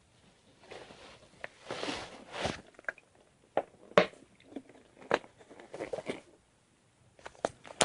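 Stomach gurgling in irregular bursts, with a few sharp knocks mixed in and a quiet spell near the end.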